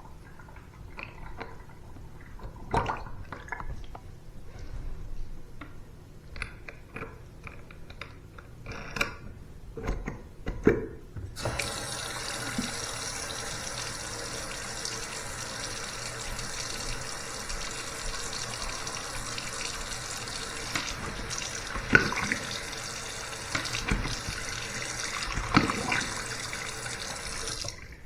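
Bathroom sink: scattered clicks and knocks of drain parts being handled, then about eleven seconds in the faucet is turned on and water runs steadily into the basin, with a couple of sharp knocks. It is a test run of the freshly cleared pop-up drain.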